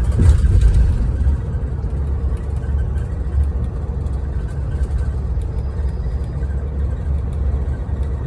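Bus running on the road: a loud, steady low rumble of engine and road noise.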